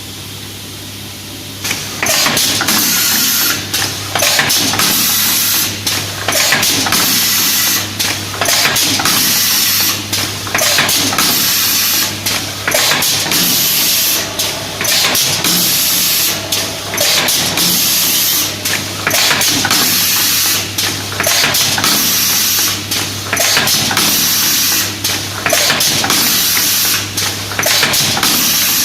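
Confetti filling machine running: a steady motor hum, joined about two seconds in by a loud rushing hiss that dips briefly every second or two.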